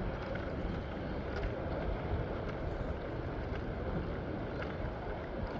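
Steady rumble of a vehicle in motion, with a few faint ticks.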